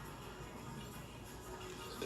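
Faint background music, with no burp or other loud sound.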